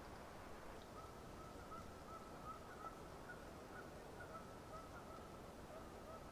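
Faint, distant bird calls: a rapid run of short notes at one steady pitch, starting about a second in, over a steady background hiss.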